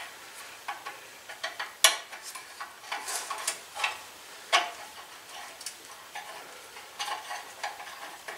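Irregular metallic clicks and clinks of hand tools and small parts against a riding mower's engine as it is worked on by hand, with two sharper clinks about 2 and 4.5 seconds in.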